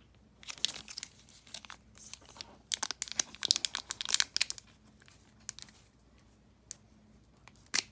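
Plastic wrapper of a Digimon trading card booster pack crinkling and tearing as it is opened by hand: a dense run of crackles through the first half, then a few scattered clicks.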